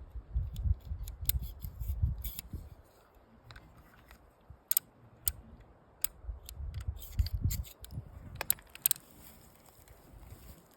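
Ruger .22 revolver being handled and loaded: irregular sharp metallic clicks from the cylinder and cartridges, over low handling thumps.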